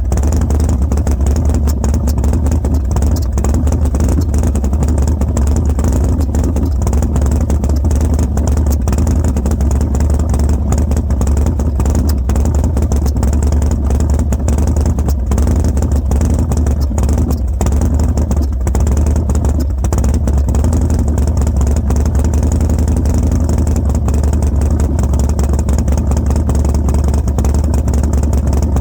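Harley-Davidson Dyna Street Bob's V-twin, fitted with Fueling 543 Reaper cams and a Bassani 2-into-1 exhaust, idling roughly and unevenly with irregular pops. It falters briefly a few times around two-thirds of the way through. This is the rough idle with backfiring and a tendency to die that the owner gets after a cold start since the cam and exhaust install and tune.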